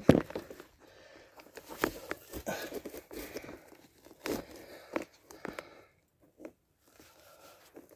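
Irregular handling noises: rustling and scraping with a series of sharp clicks and knocks, thinning out to near quiet after about six seconds.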